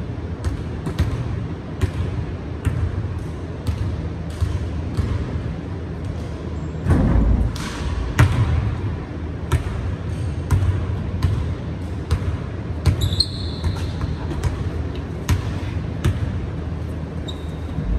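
A basketball being dribbled on a hardwood gym floor, a steady run of bounces about two a second. Sneakers squeak briefly about thirteen seconds in and again near the end.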